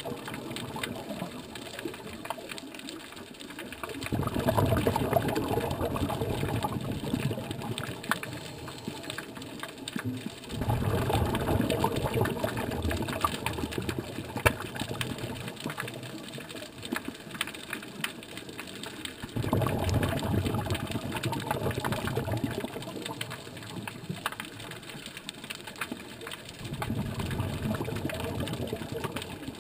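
A scuba diver's regulator exhalations heard underwater: a bubbling rush of exhaled air four times, every seven to nine seconds, each lasting about two to three seconds, with quieter stretches of faint crackling between breaths.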